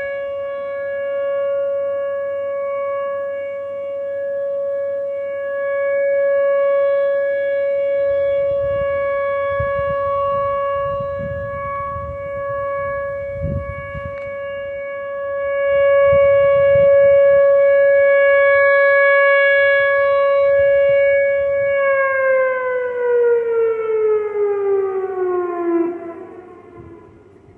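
Outdoor tornado warning siren sounding its monthly test signal: one steady tone that slowly swells and fades in loudness. About two-thirds of the way through, the pitch glides down as the siren winds down, and it fades out near the end.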